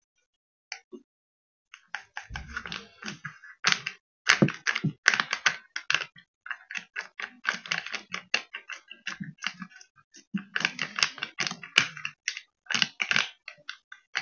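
Instant-coffee stick sachets being handled and torn open over a mug: rapid, irregular crackling and clicking of the packet wrappers, beginning about two seconds in.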